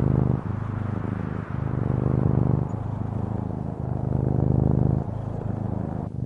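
An engine running steadily with a low, even hum that swells and fades roughly once a second.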